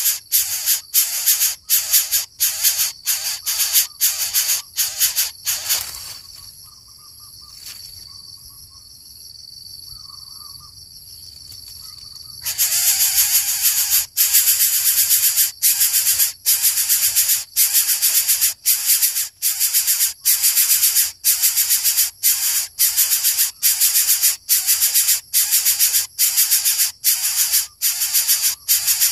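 Coucal making a loud rasping hiss over and over, about one and a half pulses a second. It stops for about six seconds a little way in, then starts again at the same pace.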